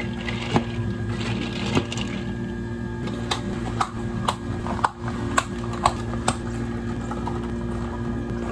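Lidded plastic iced-coffee cups being handled and their plastic lids pressed down: a string of sharp plastic clicks, about one every half second through the middle, over a steady hum of cafe equipment.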